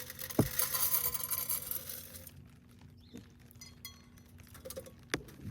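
Rabbit feed being handled and poured, a dense dry rattle with a sharp knock about half a second in. It stops about two seconds in, leaving a few faint clicks.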